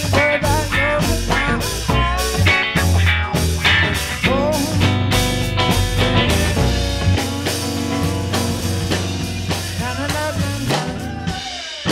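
Live blues-funk rock from a guitar-and-drums duo: an electric guitar plays bending lead lines over a drum kit keeping a steady beat with a heavy low end. Near the end the low end drops away and the music thins.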